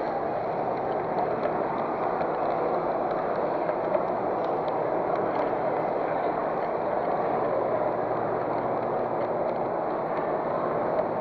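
Large-scale model train rolling along its track, heard from on board: a steady rolling rumble from the wheels with faint scattered ticks.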